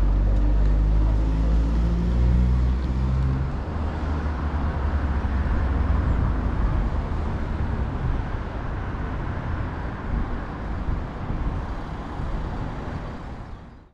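Outdoor road-traffic sound. A vehicle engine runs with a low hum for the first three and a half seconds, then steady traffic noise continues and fades out at the very end.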